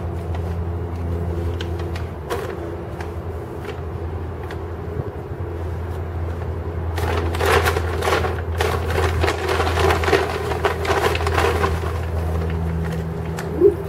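Steady low rumble of street traffic. A louder stretch of crackly, rustling noise runs for about five seconds in the middle, and one short sharp sound comes just before the end.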